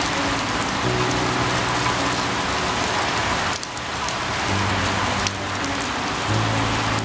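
Steady rain hiss with scattered drop ticks, over soft background music of held low notes that change every second or two.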